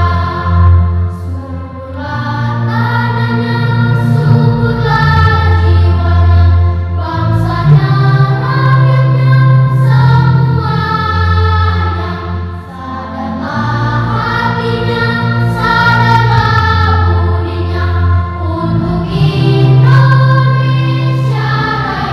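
Children's choir singing, with low held bass notes beneath the voices; the singing dips briefly about halfway through before carrying on.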